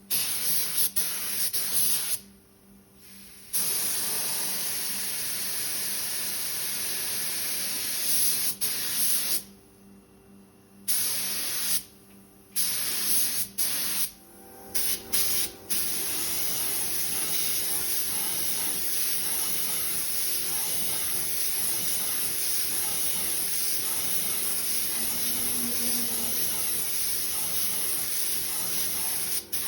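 Paint spray gun hissing as it sprays a wheel, stopping and starting several times in the first half, then spraying steadily through the second half.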